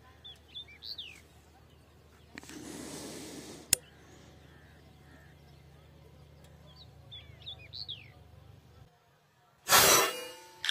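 Small birds chirping in two short runs, a breathy rush and a single click, then near the end one loud sharp report of a PCP air rifle being fired, followed moments later by a short knock.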